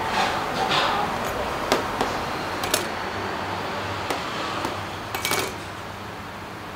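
Knife blade tapping and scraping on a stainless steel worktop as fresh noodles are cut and handled: several sharp clicks with a soft rustle near the start, over a steady background hiss.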